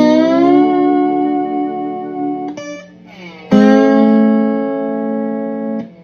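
Maple Stratocaster-style electric guitar played with a bottleneck slide. A chord is slid up into pitch and left ringing, a short note sounds about two and a half seconds in, then a second chord is struck about three and a half seconds in and held.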